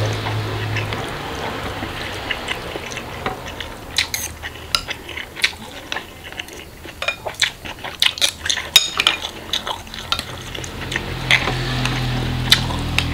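Metal spoon and fork clinking and scraping against a glass bowl as bakso, noodles and rice are stirred together, in many quick irregular clicks.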